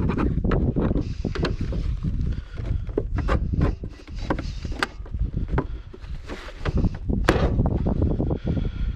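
Irregular knocks, clicks and clanks from hands working on a safe door's inner panel, over a constant low rumble.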